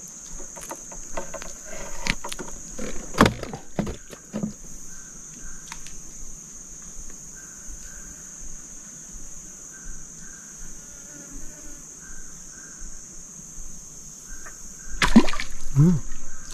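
Insects droning steadily at a high pitch, with a faint chirp repeating at an even pace. There are sharp clicks and knocks of handling in the first few seconds, and a louder burst of handling noise near the end.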